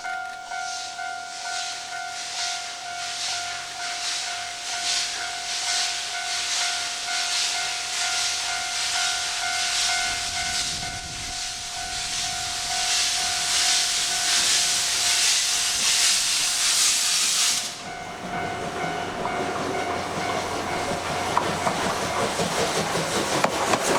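C57 steam locomotive working hard as it approaches, its exhaust beats about twice a second quickening into a continuous hiss of steam. The hiss cuts off suddenly near the end, leaving the rumble and clatter of the train going by.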